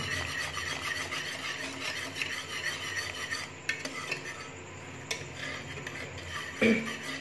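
Wire whisk stirring custard as it cooks in a metal pot, scraping steadily against the pot, with a couple of sharper clicks partway through.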